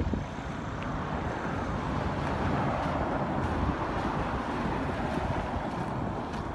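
Steady road and wind noise of a moving vehicle heard from inside it, with low wind rumble on the microphone, growing a little louder after about a second.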